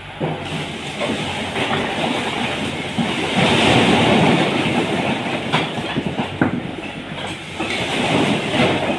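A load of bricks sliding off the raised bed of a tipper truck and clattering onto the pile below: a dense rattle of many bricks knocking together. It starts just after the beginning, is loudest in the middle, eases off a little, then picks up again near the end.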